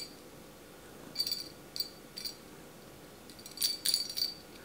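Small bell jingling in short shakes, a few brief tinkles followed by a longer run of jingling near the end.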